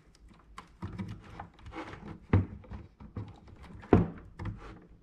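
Cables being handled and a DC power plug pushed into a connector on a light-show controller's circuit board: a run of small clicks and rustles, with louder knocks about two and a half and four seconds in.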